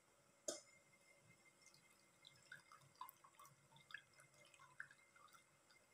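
Faint dripping and splashing of coconut-milk and brown-sugar liquid poured through a plastic strainer into a metal pot, with one short knock about half a second in.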